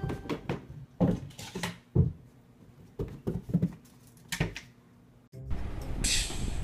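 A cat's paws thumping irregularly on carpeted stairs as it bounds on them, about eight dull knocks. After a sudden cut about five seconds in, a steady rough noise follows, with a brief hissing rustle.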